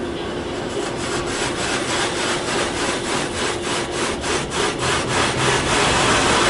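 Car-wash spray jets hitting a car in a Ryko Velvet Touch 2000 tunnel wash, heard from inside the car: a dense rush of water on the windshield and body, pulsing about four times a second as the jets sweep across, and growing louder. A steady hum lies under it early on and fades out.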